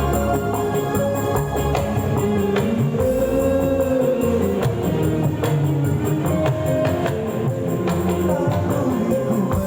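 A dangdut band playing an instrumental passage through a large sound system: melody over a strong bass, with tambourine on a steady beat.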